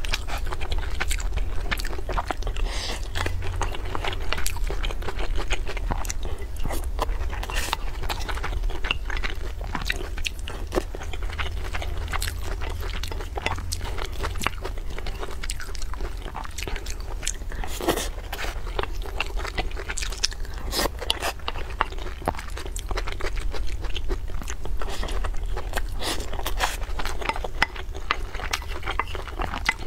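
Close-miked mouth sounds of a person chewing and biting food, a dense run of irregular wet clicks, with a wooden spoon now and then scraping the bowl. A low steady hum lies under it.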